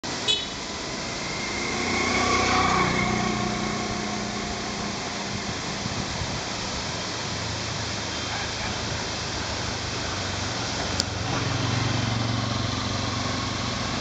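Road traffic: a vehicle engine passes about two seconds in and another swells about eleven seconds in, over a steady rushing background. A sharp click right at the start and another about eleven seconds in.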